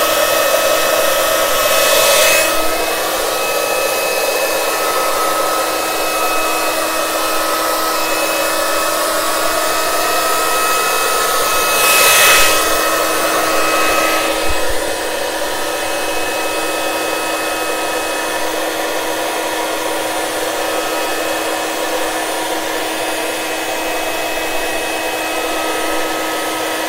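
Handleless hair dryer running on high with a steady whine over a rushing hiss, blowing wet acrylic paint across a canvas. It briefly swells louder twice, about two seconds in and about twelve seconds in.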